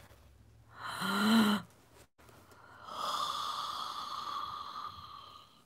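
A woman's short voiced exclamation about a second in, then a long breathy exhale lasting about two and a half seconds, an awed, half-whispered sound with no words.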